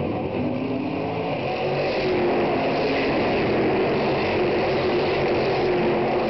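Stock Car Brasil race cars passing one after another at racing speed, engines running at high revs. The engine sound grows louder about two seconds in as cars come by close.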